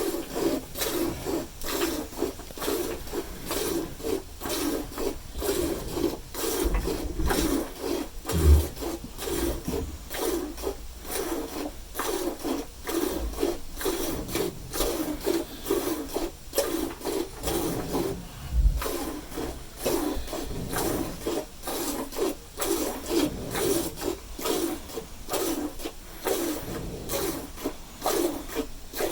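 Hand milking a cow: jets of milk squirting into a pail in a steady rhythm of about two squirts a second. A couple of dull low thumps break in, the loudest about eight seconds in.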